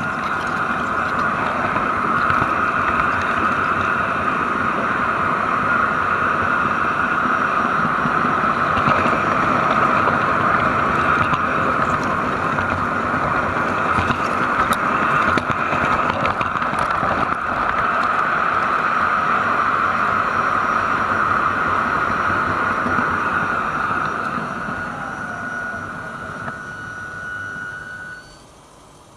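LGB garden-scale model train running along its track, its electric motor and gearing giving a steady whine over the rattle of the wheels on the rails, with a few clicks. Near the end the sound fades and then cuts off as the train comes to a stop.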